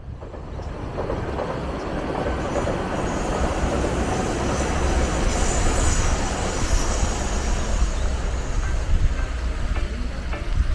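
A train passing on the railway line beside the canal: a steady noise of the train running along the track that builds over the first few seconds and eases a little near the end.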